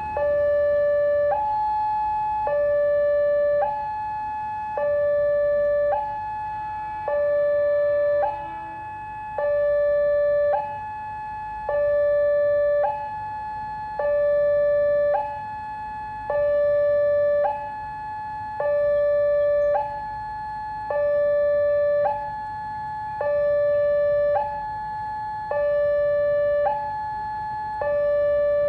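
Railway level-crossing warning siren sounding a steady two-tone hi-lo alarm: a higher tone and a lower tone of about a second each, alternating without pause, the signal that the barrier is closing for an approaching train.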